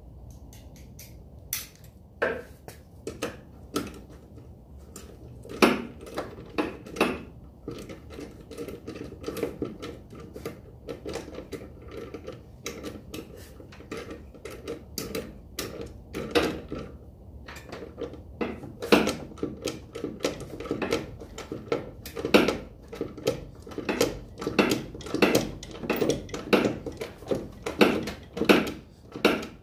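Metallic clicking and clinking of hand tools at work on a car's front strut, in short irregular runs of sharp clicks, sparse at first and busier in the second half.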